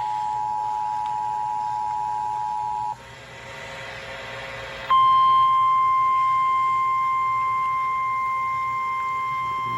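EAS two-tone attention signal, two steady tones sounding together, cutting off about three seconds in. After a couple of seconds of quieter hiss, the NOAA Weather Radio single-tone warning alarm starts abruptly about five seconds in and holds steady.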